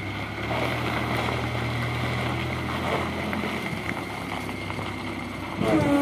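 JCB backhoe loader's diesel engine running as the machine drives up, with wind on the microphone; its steady low note drops away about four seconds in. Just before the end a louder sound with a falling pitch begins.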